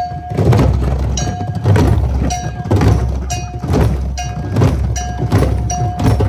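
A drum circle of many djembes and other hand drums starts up together at once and plays a steady beat of deep drum strokes. A short, ringing metallic stroke comes about once a second.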